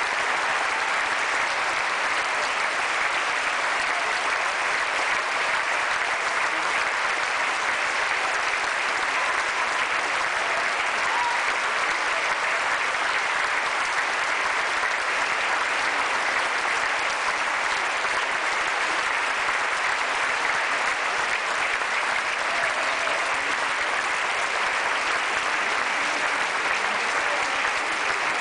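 Theatre audience applauding steadily, a dense, even clapping that does not let up.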